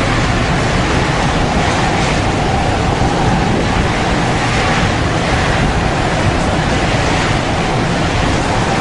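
Storm wind at sea blowing hard across the microphone over heavy waves, a loud, steady rushing noise with a low rumble.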